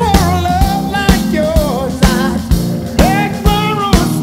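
Background rock music with a steady drum beat, about two beats a second, under a bending melodic lead line.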